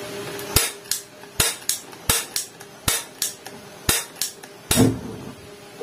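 A series of about ten sharp clicks or knocks, mostly in pairs roughly every three-quarters of a second, the last one near the end longer and the loudest.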